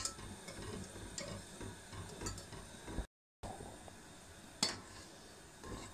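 A metal whisk, then a spoon, stirring curdling milk in a stainless steel pot: soft scraping with a few sharp clinks of metal against the pot. The sound cuts out briefly about three seconds in.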